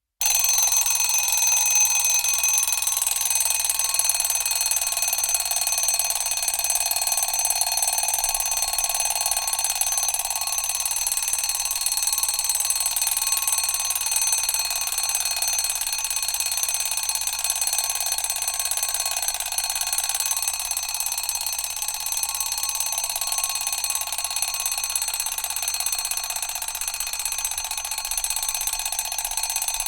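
Mechanical alarm clock bell ringing continuously, its hammer rattling against the bell. It starts abruptly, gives a bright metallic ring of many high tones, and slowly weakens.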